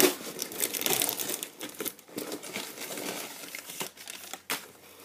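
Cardboard shipping box and its packing being handled and opened: continuous rustling and crinkling with scrapes, and a couple of sharp snaps near the end.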